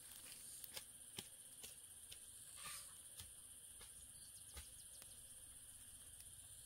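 Near silence: a faint, steady high-pitched insect drone, with scattered light clicks and crackles of footsteps on dry leaves and twigs.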